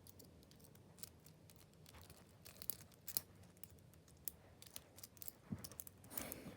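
A small TSA combination padlock being worked by hand: faint, irregular metal clicks and scrapes, with a longer scrape near the end.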